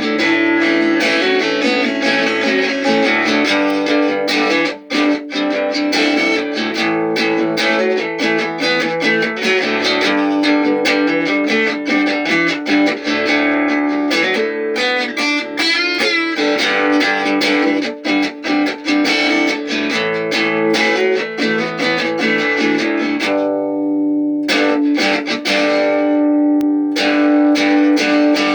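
Guitar music: a dense run of quickly plucked notes over a steadily held low note. The high notes drop out briefly near the end.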